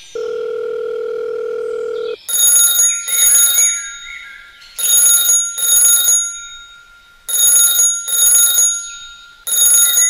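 A steady electronic tone for about two seconds, then a telephone ringtone sound effect ringing in pairs of rings, a pair roughly every two and a half seconds, four pairs in all.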